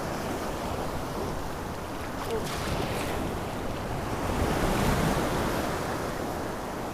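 Surf washing and breaking steadily, swelling a little past the middle, with wind buffeting the microphone.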